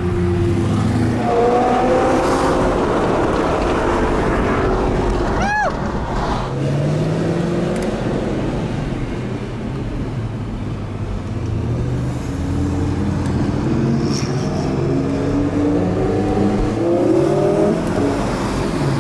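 Several supercar engines running and revving as cars pull off one after another, their notes rising and falling. A brief high chirp sounds about five and a half seconds in.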